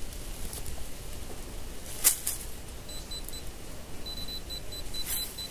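Handheld pinpointer probe giving short, rapid high beeps for about a second and a half near the end, the sign of a metal target close to its tip in the dig hole. A sharp click sounds about two seconds in.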